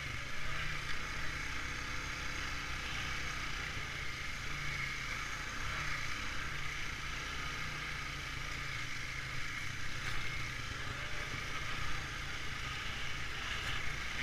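Honda ATV engine running steadily while riding along a trail.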